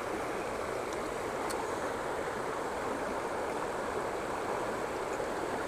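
Shallow rocky creek running over stones: a steady rushing of water.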